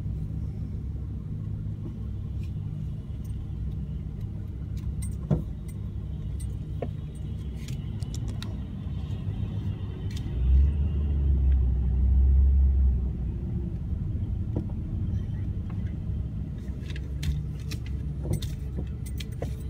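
Low steady engine rumble of motor vehicles heard from inside a car's cabin, swelling louder for about two seconds midway, with scattered light clicks near the end. No siren.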